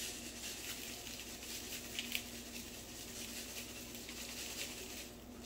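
Panko breadcrumbs poured from a canister onto raw ground beef in a bowl: a faint, soft pattering, with two light ticks about two seconds in.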